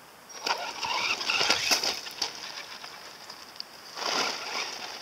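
Radio-controlled monster truck driving over loose gravel: a steady high motor whine, with bursts of crunching, scattering gravel from the tyres about half a second in and again around four seconds.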